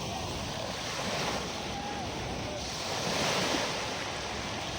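Calm sea waves washing onto a beach, the surf swelling louder about a second in and again past the middle, with wind buffeting the microphone.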